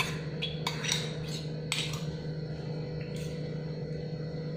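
Glass bowl clinking against a glass dish as washed poha is scraped out of it by hand: a handful of light clinks and knocks, most in the first two seconds and one more about three seconds in, over a steady low hum.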